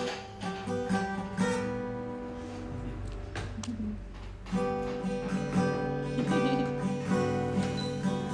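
Background music led by plucked acoustic guitar, growing fuller and louder about halfway through.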